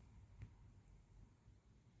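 Near silence: faint room tone, with one faint click less than half a second in.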